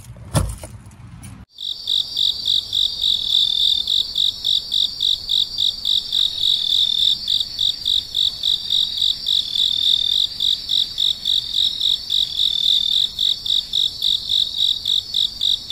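Cricket-like insect chirping: a high, even pulsing trill at about three pulses a second. It starts abruptly about a second and a half in and keeps a steady level.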